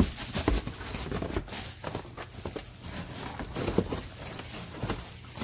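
Bubble wrap and plastic packaging crinkling and rustling as a wrapped headlight is handled and lifted out of a cardboard box, with irregular crackles and light knocks.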